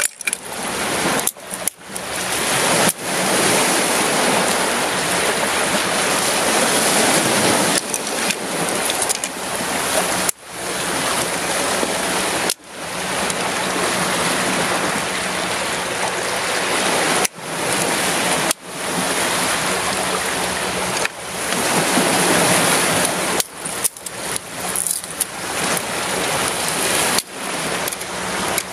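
Sea surf washing over rocks: a steady, loud rushing hiss, broken by several sudden brief dips.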